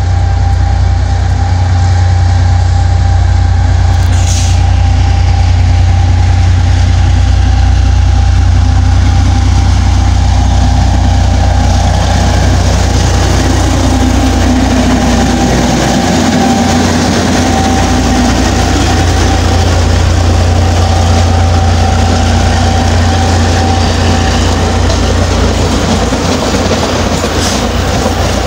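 EMD GR12 diesel-electric locomotive running under load as it hauls a container freight train past, its engine note growing louder and dropping in pitch as it goes by about halfway through. After it the loaded container wagons roll past on the rails with a steady rumble.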